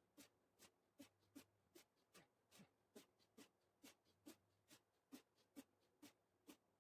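Faint, evenly spaced short sounds from a man doing Hindu squats in footage sped up four times, one with each rep, about two and a half a second.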